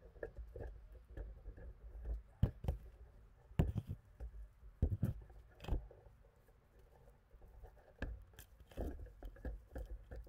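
Irregular knocks, scrapes and rustles of handling noise as a climber works down a tree with the camera, branches brushing past, over a low rumble. A few louder knocks stand out.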